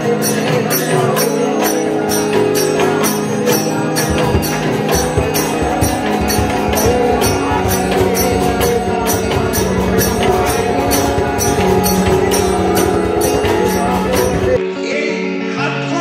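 Assamese devotional ensemble music: barrel drums and metal percussion beating an even rhythm of about three strokes a second under sustained chanted tones. Near the end it cuts abruptly to a duller-sounding recording.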